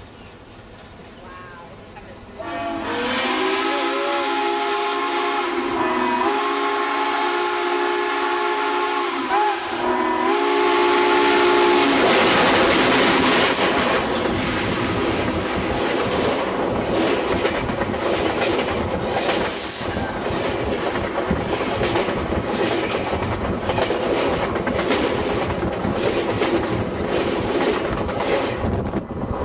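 Southern Pacific 4449, a GS-4 steam locomotive, blowing its steam whistle in long blasts of several notes at once as it approaches at speed. About twelve seconds in, the engine passes directly over a microphone lying between the rails: the whistle gives way to a loud rush of steam with fast clattering of wheels on rail, which goes on as the train rolls overhead.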